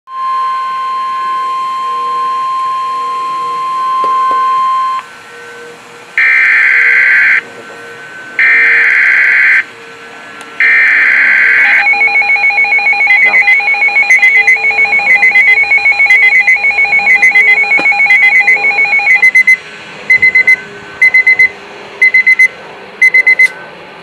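Midland S.A.M.E. weather alert radio going off for an alert: a steady high tone for about five seconds, then three loud bursts of screeching digital SAME header data about a second apart, then the radio's own alarm of rapid high-pitched beeps that slows after about seven seconds into single beeps a little under a second apart.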